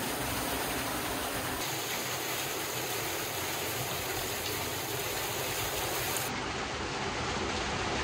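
Small waterfall pouring off a rock ledge and splashing into a shallow pool, a steady rushing hiss of falling water.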